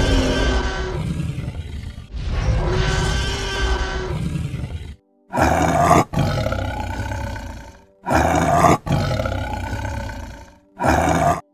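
A T. rex roar sound effect, two long roars, then from about five seconds in a tiger roaring in a string of short, loud bursts, over background music.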